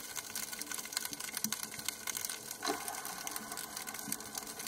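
Underwater crackle: a dense, irregular patter of sharp clicks with a faint steady hum beneath.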